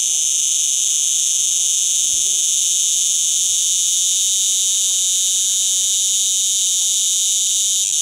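Cicada calling: a loud, continuous, high-pitched buzz that holds steady, with a brief break near the end.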